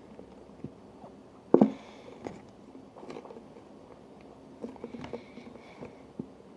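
Handling noises from glue and containers on a table: light scattered taps and knocks, with one sharper knock about a second and a half in.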